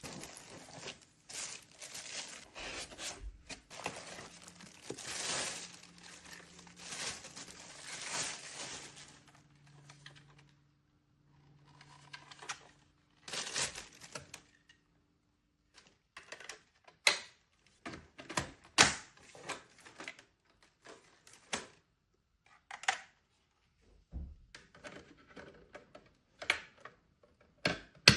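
Packaging being handled: cardboard and plastic wrapping rustling and tearing for the first several seconds, then scattered sharp clicks and knocks.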